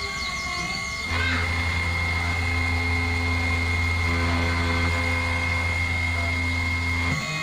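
CNC 2417 router's 100-watt spindle running, with a steady high whine, as its engraving bit cuts shallow, slow passes into aluminium plate. A low hum sets in about a second in and stops near the end.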